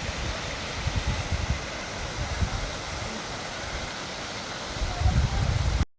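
Wind buffeting the microphone in uneven gusts over the steady rush of a mountain waterfall. The buffeting grows stronger near the end, and the sound cuts off abruptly.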